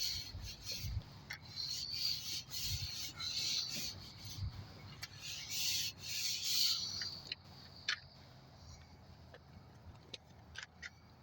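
A rag rubbing and scrubbing across a dirty garage door in repeated strokes, then quieter near the end with a few light clicks.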